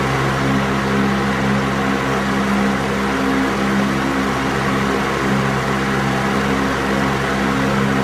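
Electric fan running steadily: an even rush of moving air over a constant low motor hum.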